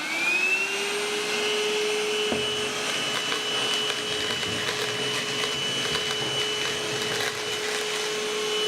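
Novete cordless handheld vacuum cleaner's motor spinning up with a rising whine, then running steadily at a constant pitch with a rush of suction air and scattered light ticks.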